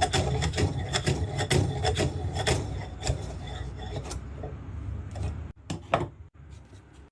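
Rough scraping and rasping on wood in quick, uneven strokes, which stops about five and a half seconds in and is followed by two sharp knocks.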